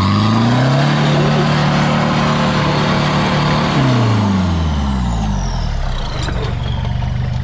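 Off-road 4x4's engine revving up and held at high revs for about three seconds as the driver tries to climb a rock obstacle in second gear, then dropping back to idle, with a sharp knock about six seconds in.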